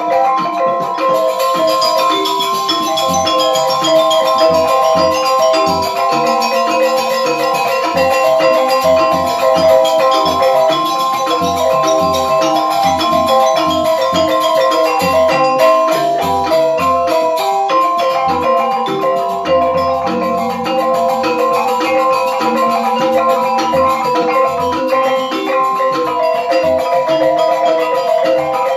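Balinese gamelan semar pegulingan ensemble playing: bronze metallophones ringing in fast, dense note patterns over low kendang drum strokes, with suling bamboo flutes among them.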